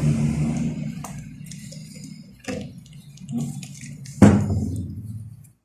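A low motor hum fades away, then small metal carburettor parts clink and knock as they are handled, with a sharper clank and a brief ring about four seconds in.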